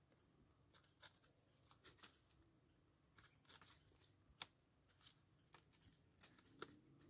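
North American beaver gnawing a tree trunk with its incisors: faint, irregular scraping and crunching of teeth on wood, with a few sharper clicks.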